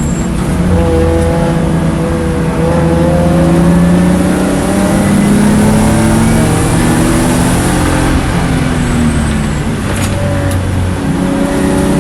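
Race car engine running hard on track, its pitch rising and falling with throttle and gear changes.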